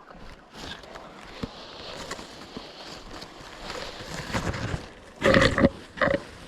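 Rustling and brushing as a leaf-suit-clad player moves through brush, with two short loud voice-like sounds near the end, the second shorter, about a second apart.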